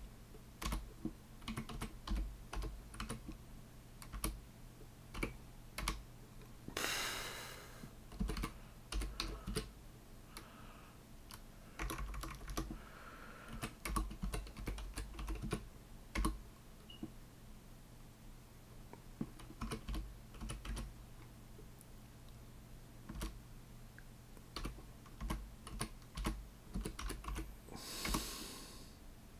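Typing on a computer keyboard: runs of keystrokes with pauses between them. Two short hiss-like rushes of noise come through, about seven seconds in and near the end, over a faint steady low hum.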